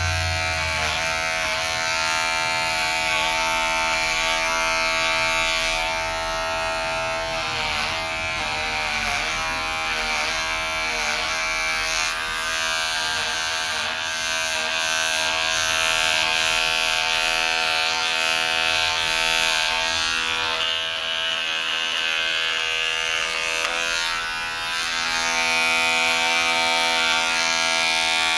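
Electric hair clipper buzzing steadily as it is run over close-cropped hair against the scalp, its hum dipping briefly in pitch several times partway through.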